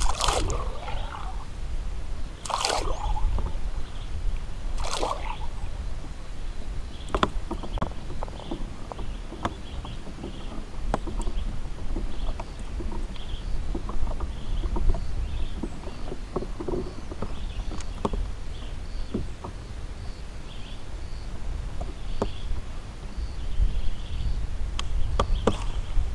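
Wind rumbling on the microphone and water sloshing against a kayak hull. Three short swishes come in the first five seconds, then scattered light ticks.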